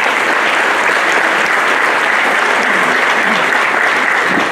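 A crowd applauding steadily: many hands clapping together in a dense, even patter.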